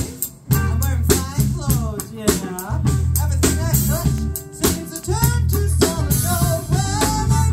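Live blues band playing: drum kit with electric guitars. The band stops for a moment just at the start, then comes back in.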